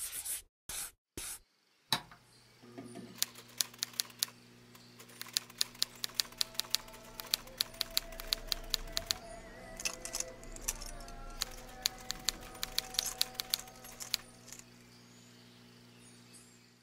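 Typewriter keys clacking in quick, uneven runs over soft background music of held tones. It is a typing sound effect that accompanies on-screen text being typed out.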